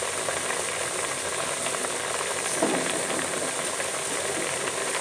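Chicken and potato curry with spice paste cooking in a pot on the stove: a steady sizzling, bubbling hiss as the liquid simmers down.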